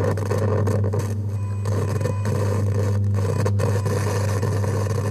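Steady low mechanical rumble with a noisy hiss above it, engine-like, holding level with a few brief dips.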